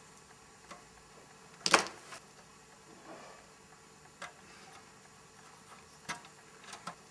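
A few small, sparse metallic clicks and ticks of fine hand tools (pliers, then a thin nut driver) working on a metal model pantograph, as a tiny nut is set over a cable terminal on a base post and tightened. The sharpest click comes a little under two seconds in.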